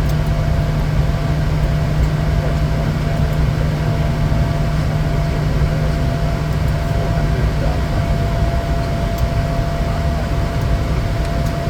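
Bombardier Challenger 350 business jet's turbofan engines running steadily: a dense, even noise with a low hum and a thin steady whine through it.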